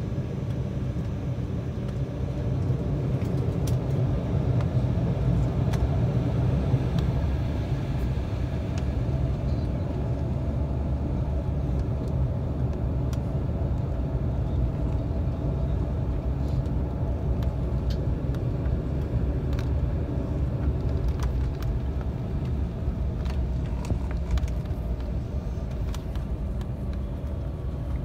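Cabin noise of an Embraer 195 airliner taxiing on low engine thrust: a steady low rumble with a few light clicks and rattles. It swells slightly a few seconds in.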